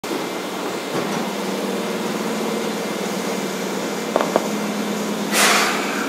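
Electric commuter train standing at the platform: a steady hum from its onboard equipment, two sharp clicks a little after four seconds in, and a short hiss of released air near the end.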